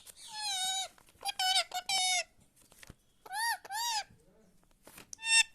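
Pet parrot talking, speaking short phrases of mimicked words in a high, thin voice. The phrases come in several bursts with pauses, including two quick rising-and-falling calls near the middle.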